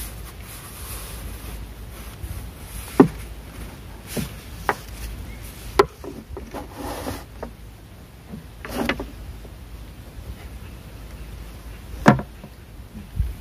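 A paddle knocking and rubbing against the side of a small wooden boat as it is paddled, about six irregular knocks, over a low steady rumble.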